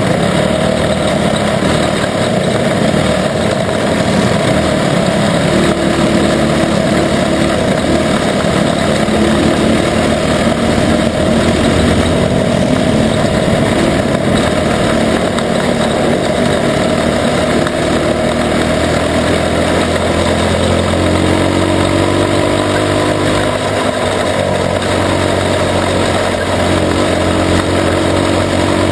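Onboard sound of a junior sprint car racing on a dirt track: its engine running hard and loud under a steady rush of noise, the engine note rising and falling slightly in the second half.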